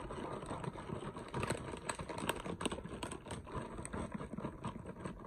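A plastic bag of shredded cheddar crinkling and rustling as the cheese is shaken out onto macaroni in a glass baking dish, with many small irregular clicks and crackles.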